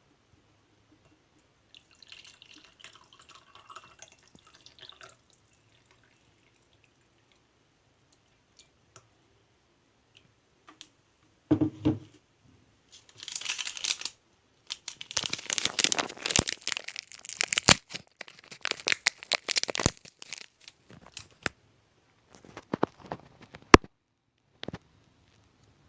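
Intermittent handling noises: rustling and crinkling with many sharp clicks, a dull knock about twelve seconds in and a sharp click near the end.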